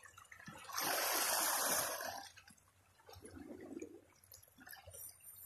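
Seawater washing against the rocky shoreline: a single wash of water noise starting just under a second in and fading after about a second and a half, then only faint sounds.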